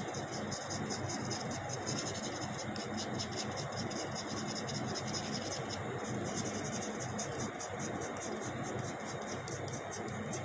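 Soft 8B graphite pencil shading on paper: a steady scratchy rasp made of rapid short back-and-forth strokes.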